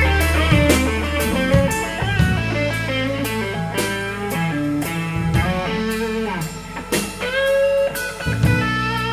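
Blues band playing a slow blues instrumental passage: semi-hollow electric guitar soloing with bent notes over keyboard bass and drums.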